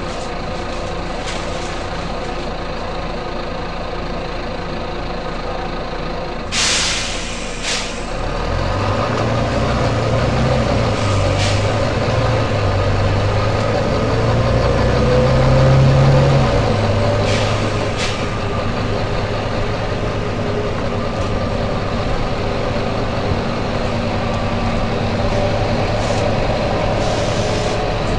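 Volvo B9TL double-decker bus's six-cylinder diesel running, with several short sharp air hisses from its air brakes and pneumatics; the longest comes about six seconds in. About eight seconds in the engine note climbs and grows louder, then drops back about eight seconds later.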